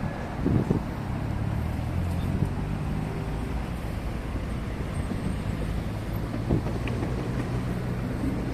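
Road traffic in a jam on a multi-lane highway: cars idling and creeping along in a steady low rumble, with a few short thumps about half a second in and again near the end.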